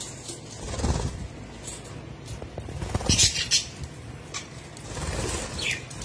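Budgerigars chirping in short bursts, with rustling and a few low bumps.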